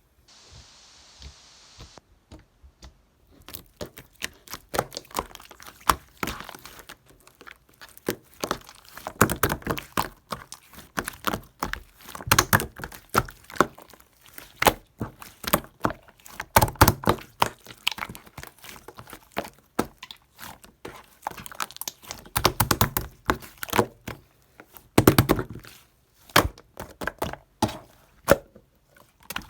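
Many irregular sharp clicks, knocks and crackles close up, coming thick and fast, with louder clusters every few seconds. A faint hiss comes before them at the start.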